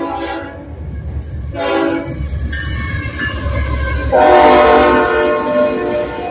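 Union Pacific diesel locomotive's multi-tone air horn sounding the grade-crossing signal: a long blast ends about half a second in, a short blast comes near two seconds, and a long blast starts about four seconds in as the lead locomotive passes. Underneath, the locomotives' engines and wheels rumble low.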